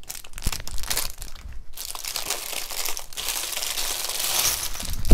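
Clear plastic bag crinkling as it is handled and pulled off a beaded necklace, busiest near the end.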